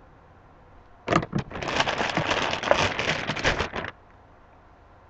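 Small plastic hand-gel bottles being handled and rummaged through in a pile. A few sharp clicks come about a second in, then about two and a half seconds of dense clicking and rustling that stops suddenly.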